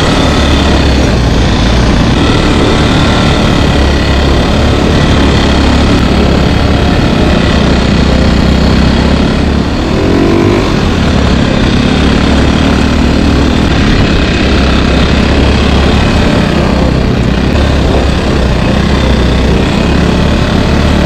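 Engine of an off-road side-by-side buggy running steadily while driving over a dirt trail, with rumbling road noise. About halfway through, the engine pitch briefly changes and the sound dips for a moment.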